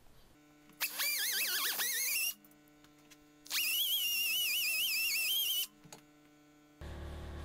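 Die grinder with a sanding drum smoothing the inside of a forged hammer head's eye hole: two runs, of about one and a half and two seconds, each a high whine that wavers in pitch as the drum is worked against the steel. A steady lower hum sets in near the end.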